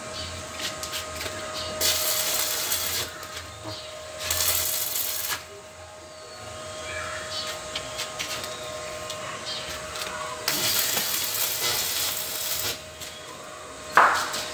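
Electric arc welding on thin steel rods: the arc crackles and hisses in three bursts of one to two seconds each, about two, four and ten seconds in. A faint steady tone runs beneath, and a short sharp knock comes near the end.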